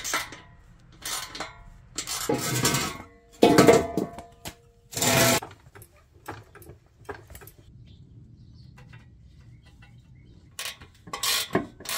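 Metal clanks and clinks of an exhaust pipe and its flange bolts being handled and fitted: several sharp clanks, some ringing briefly, in the first five seconds, then softer scattered ticks, with more clanks near the end.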